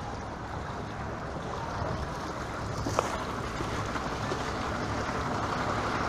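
A truck running through floodwater on a flooded street: a steady wash of moving water over a low engine rumble, growing louder near the end as the truck comes close. A single short sharp click about halfway.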